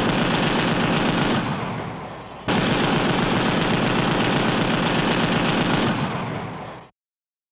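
Machine-gun fire sound effect: a burst of rapid automatic shots that fades out about two seconds in, then a second, longer burst that starts abruptly and fades out near the end.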